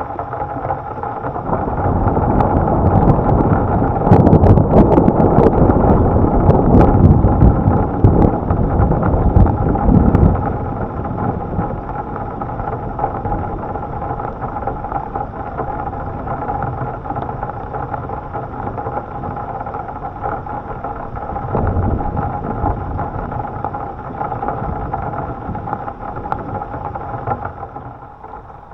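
A long, loud rumble of thunder with crackles, fading about ten seconds in to a steady storm noise with a constant hum underneath.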